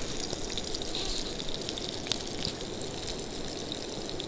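Grayling fish cutlets frying in a pan: a steady sizzling hiss with faint scattered crackles.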